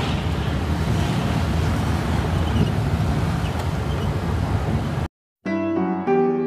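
Steady road and wind noise from a moving vehicle, a low rumble with hiss. About five seconds in it cuts off sharply, and after a short gap piano music begins.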